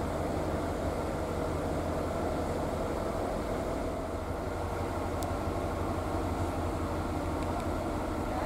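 Steady low engine hum under an even rushing noise, with one faint tick about five seconds in.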